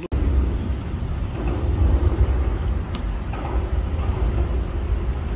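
Wind buffeting the microphone outdoors on open water: a steady low rumble with a rushing hiss.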